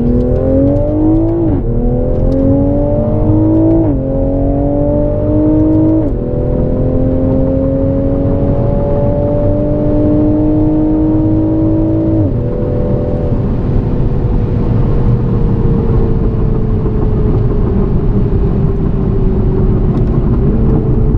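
Toyota GR Supra (MK5) engine under full throttle, heard inside the cabin, climbing in pitch and dropping back at four upshifts about 1.5, 4, 6 and 12 seconds in. After the last shift it settles into a steady, slowly falling drone as the car lifts off and coasts, with a small step up in pitch near the end.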